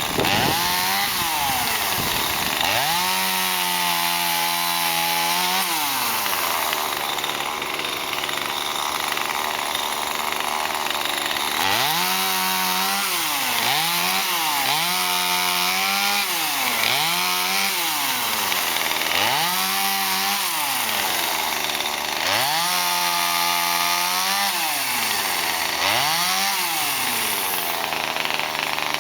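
Two-stroke chainsaw revved up to full speed and dropped back again and again, about nine times, some runs held at full speed for two or three seconds, as it cuts up a fallen peppermint tree.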